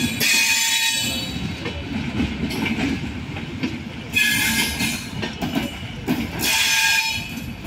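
Indian Railways passenger coaches rolling slowly past as the train pulls into the station, a steady low rumble and clatter of wheels on rail. High-pitched metallic wheel squeals break in three times, at the start, about four seconds in and about six and a half seconds in.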